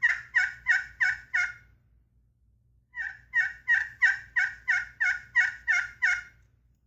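Handmade pot-style friction turkey call played with a striker, making soft yelps: a run of about five short notes, a pause of about a second, then about ten more at roughly three a second.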